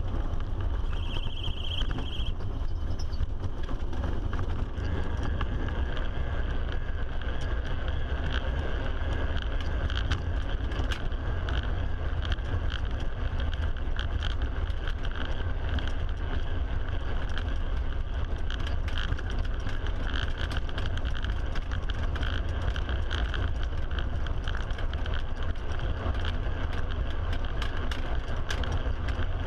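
A faired human-powered racing vehicle running at speed, heard from inside its enclosed shell: a steady low rumble of the tyres and body on the road, with frequent small ticks and rattles.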